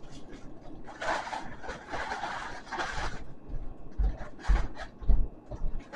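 Rubbing and scraping as a massage gun's carrying case and attachments are handled, loudest about one to three seconds in, followed by a few low knocks.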